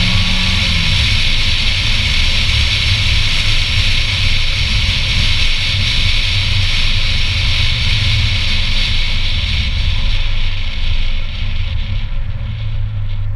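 Air and road noise rushing over a hood-mounted action camera on a C7 Corvette Z06 on the move, with the car's V8 droning low underneath. The rush eases off near the end as the car slows.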